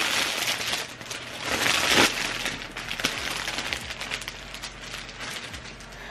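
Crinkling and rustling as a thin scarf is handled and unpacked, loudest about two seconds in, then settling to a quieter rustle.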